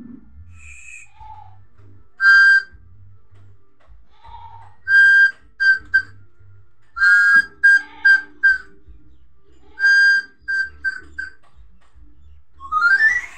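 Loud, short whistled notes, some single and some in quick runs of three or four, ending with a rising whistle near the end.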